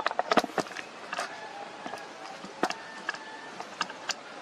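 Sharp mechanical clicks and light knocks, irregularly spaced and thicker in the first second or so.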